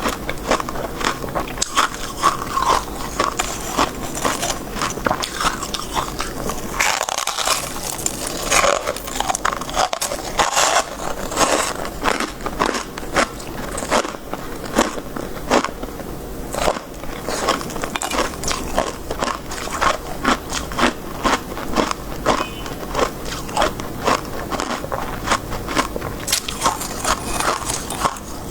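Close-miked crunching and chewing of soft shaved ice and freezer frost, a rapid crackly crunch with each bite running on without pause.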